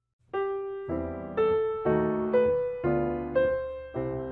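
Background piano music begins about a third of a second in: a calm melody of single struck notes, about two a second, each fading before the next.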